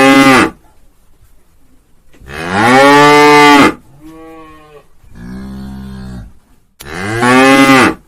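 Cows mooing: the tail of one moo, then four long moos of about a second each, two loud and two quieter ones in between.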